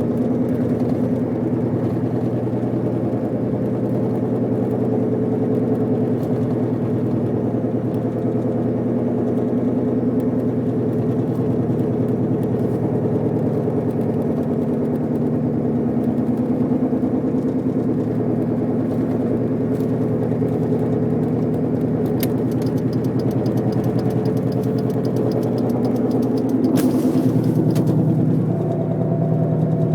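Car's grinding, whining drone while driving: several steady tones that run on and on, the noise that appeared right after the wheel bearings were replaced. Near the end there is a brief hiss and the tones shift and grow a little louder.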